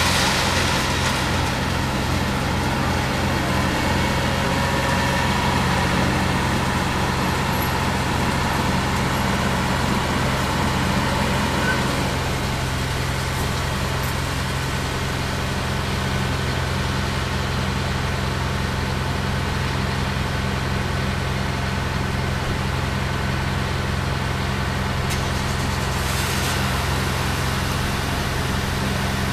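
A John Deere 450C LC excavator's diesel engine running steadily, with a constant low hum. There is more noise over it during the first twelve seconds, then it settles.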